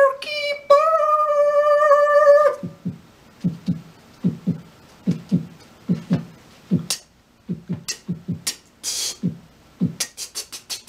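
A man's vocal sound effects: a long held, sung note, then a string of short, low mouth pops, two or three a second, broken by a few sharp hissing clicks.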